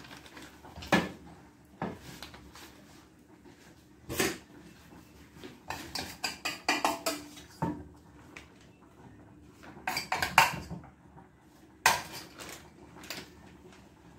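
Dishes and metal utensils clinking and knocking, a scatter of sharp clatters spread through several seconds with a brief flurry about six seconds in and again near ten seconds.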